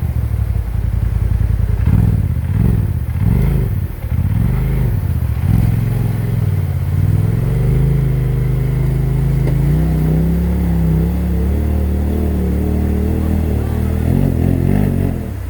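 Off-road vehicle engine revving up and down several times while working over rocks, then holding steady raised revs for several seconds before dropping back near the end.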